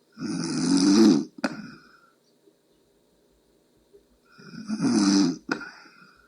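A sleeping person snoring: two loud rasping snores about four seconds apart, each lasting about a second and ending in a short sharp click.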